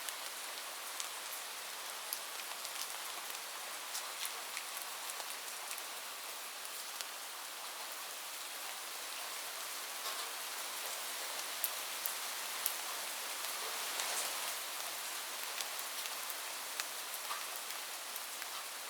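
Steady heavy rain falling on a roof, an even hiss with individual drops ticking sharply here and there. No thunder is heard.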